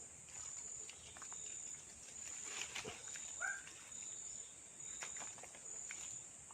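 Insects trilling in the swamp: a steady high-pitched buzz that pulses about once a second. A single short chirp comes about three and a half seconds in, with a few faint clicks.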